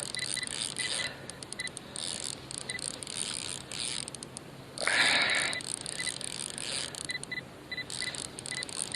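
Fishing reel being cranked on a tai-rubber jigging rod, clicking irregularly, with a brief louder rush of noise about five seconds in.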